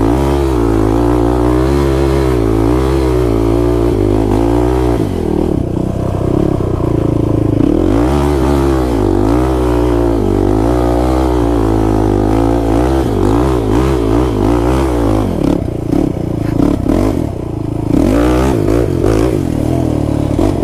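Kawasaki KFX 450R quad's single-cylinder four-stroke engine revving up and down as it is ridden. The pitch climbs and drops again and again, easing off briefly a few times.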